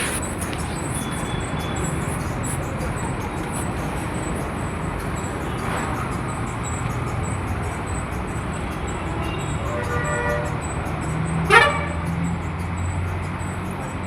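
Road traffic passing steadily, with a low engine rumble and tyre noise. A vehicle horn sounds for about a second around ten seconds in, and a sudden sharp sound comes just after, the loudest moment.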